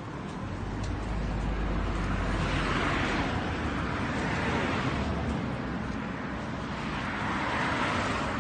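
Road traffic on a street: two cars passing, their tyre and engine noise swelling and fading, the first about three seconds in and the second near the end.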